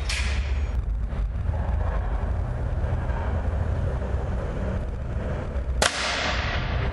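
A single shot from a Mendoza Xtreme air rifle firing a 5.5 mm pellet at a paper target, about six seconds in: a sharp crack with a fading ringing tail. A steady low hum runs underneath.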